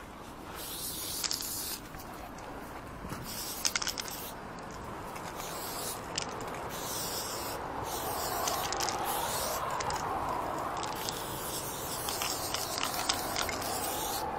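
Aerosol spray-paint can hissing in repeated bursts of about a second each, black paint going onto a corrugated metal fence.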